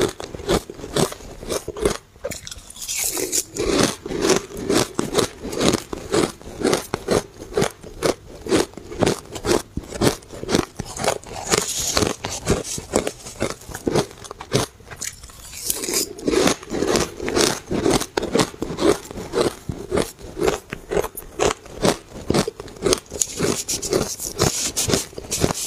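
Person chewing a mouthful of blended shaved ice, a rapid, crisp run of crunches several a second, with brief lulls about two seconds in and around the middle.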